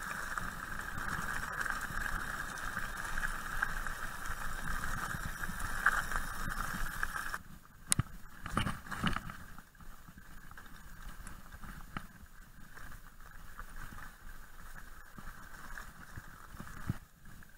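Mountain bike rolling fast over a gravel track, a steady rushing and crunching noise. About seven seconds in it drops away sharply, and the ride goes on quieter, with a few sharp knocks and rattles of the bike over bumps.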